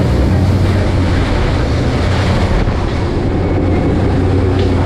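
Boat running fast across open water: a steady, low engine hum from the outboard under the rush of wind and spray against the hull.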